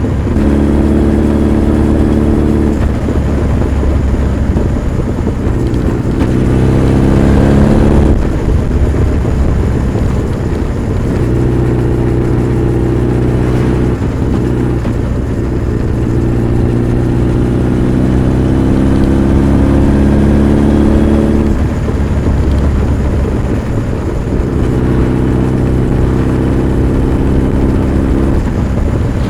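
Honda CB1300 Super Bol d'Or's inline-four engine pulling hard under acceleration. The engine note climbs steadily in pitch and drops at each upshift, several times over.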